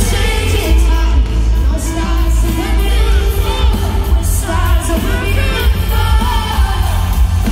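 Live pop song performed in an arena, heard from the audience: a female singer's lead vocal over the band, with heavy bass.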